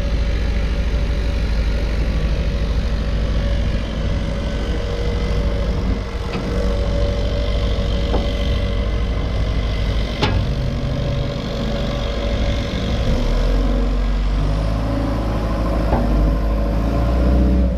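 A heavy diesel machine's engine running steadily, with a constant hum over it and a few sharp knocks. Its low note grows stronger over the last few seconds as the engine takes on more power.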